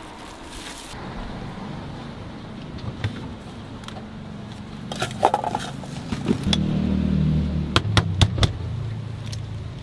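A car engine runs with a low hum that swells about two-thirds of the way through. Over it come scattered sharp clicks and clacks of eggs and bowls being handled, with a quick run of four near the end.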